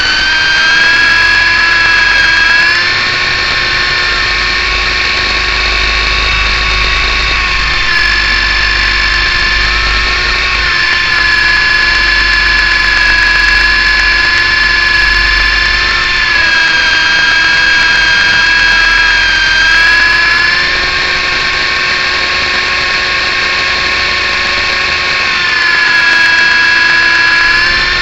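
Electric motor and rotor drive of an MJX F645 RC helicopter whining steadily, as heard from its onboard camera in flight. The pitch steps up and down several times as the throttle changes.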